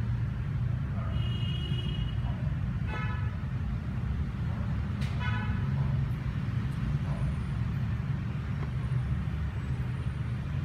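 Steady low rumble of road traffic with a few short vehicle horn toots, three of them in the first half.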